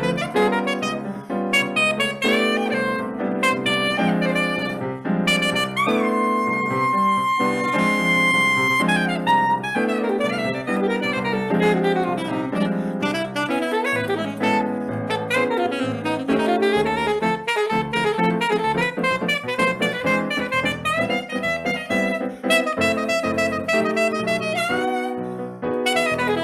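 Saxophone playing a Brazilian-style melody live over a lower accompaniment, in quick running phrases with one long held note about a quarter of the way in.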